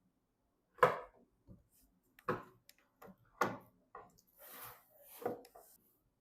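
Hands handling computer parts: a string of sharp plastic-and-metal knocks and clicks, four louder ones a second or two apart with lighter taps between, and a short rubbing hiss about halfway through.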